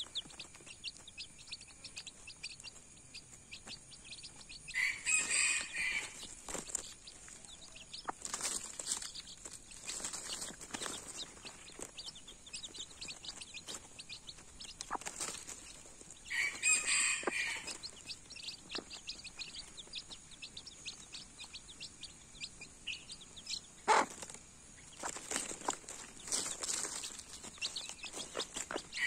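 Baby chicks peeping rapidly and continuously while they feed, a dense stream of short high cheeps, with louder bursts of calls twice. There is one sharp tap about four-fifths of the way through.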